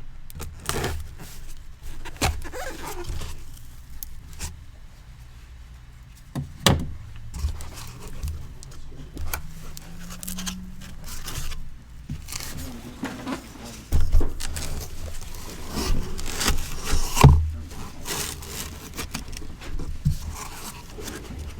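A cardboard case of sealed trading-card boxes being opened and handled: irregular scraping and rustling of cardboard with a number of sharp knocks and taps, the loudest knocks about two thirds of the way through.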